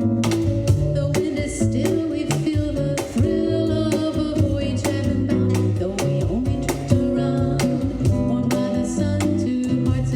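Live acoustic guitar playing a bossa nova tune, with hand percussion tapping out the rhythm alongside it.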